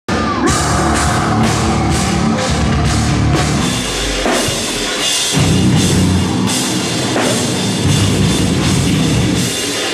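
Heavy rock music: distorted band sound with a full drum kit keeping a steady beat, thinning out in the bass for a moment about four seconds in before coming back in full.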